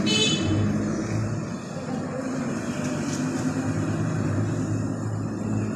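Steady low engine hum with background traffic noise, and a short high-pitched tone right at the start.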